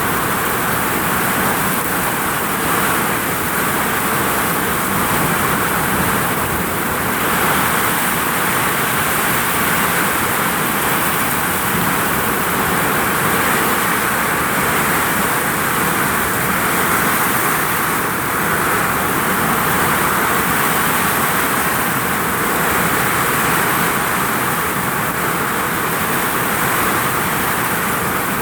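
Heavy rain falling on a vinyl roof: a loud, steady, dense hiss of drops with no let-up.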